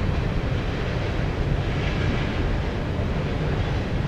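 Freight train of open hopper cars rolling past with a steady low rumble, mixed with wind buffeting the microphone.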